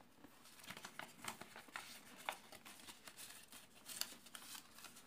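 Faint rustling and crinkling of a sheet of origami paper being folded and creased by hand, with scattered soft ticks as the folds are pressed flat.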